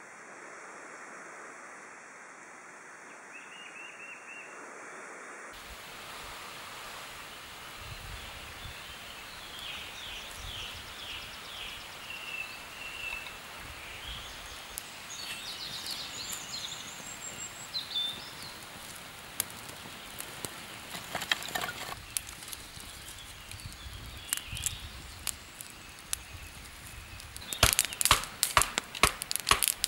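Birds singing over outdoor ambience, then near the end a quick run of loud, sharp wooden knocks: a knife being batoned through firewood with a wooden stick to split kindling.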